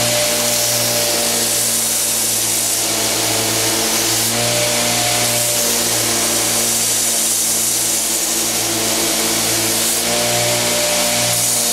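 Homemade 2x72 belt grinder running steadily, its motor humming under the hiss of the abrasive belt as a knife handle is ground to profile. The grinding hiss swells and eases as the handle is pressed on and worked.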